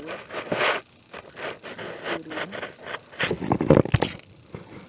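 Sweet potato vines and garden soil rustling and scraping as they are pulled up by hand: a run of short, irregular scrapes, loudest about three and a half seconds in.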